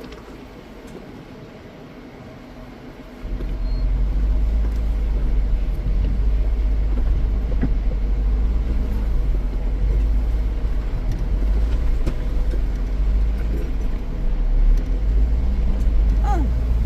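Vehicle on a dirt trail: a low, steady rumble of engine and tyres that sets in about three seconds in, after a quieter start.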